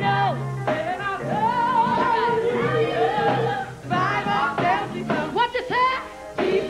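Female gospel singing: the lead voice sings sliding runs and long held notes, over a low sustained backing.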